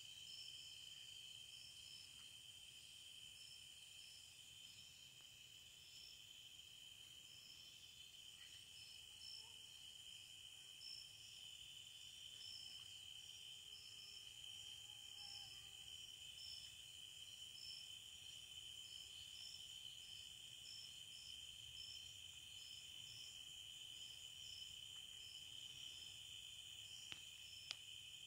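Faint evening chorus of crickets and other insects: a steady high trill with repeating chirps above it. A couple of faint clicks come just before the end.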